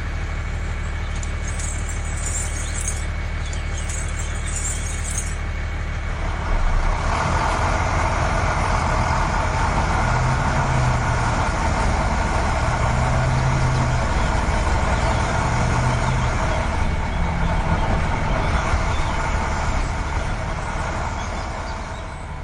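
A vehicle engine running steadily, a step louder from about seven seconds in, easing off near the end.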